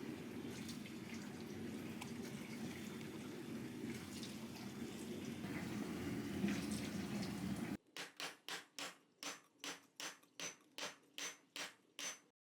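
Water running or bubbling steadily with small drips and ticks for about eight seconds, then cutting off. It is followed by a quick, even series of about fourteen soft pulses, roughly three a second.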